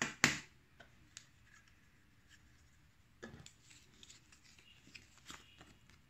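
Two sharp clacks of hard plastic gadgets being set down on a tabletop right at the start, then small handling clicks and the crinkle of a paper manual being picked up and unfolded.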